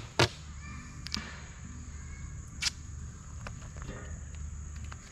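Duct tape being ripped off the roll in short, sharp tears: one right at the start, a smaller one about a second in, and another about two and a half seconds in.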